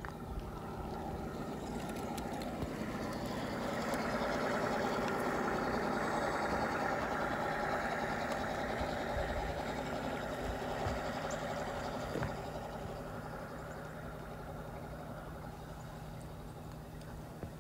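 Large-scale GP9 model diesel locomotive's onboard engine sound, a steady diesel drone that grows louder as the engine passes close by between about four and ten seconds in, then fades as it moves away pushing its wedge snowplow. There is a sharp click about twelve seconds in.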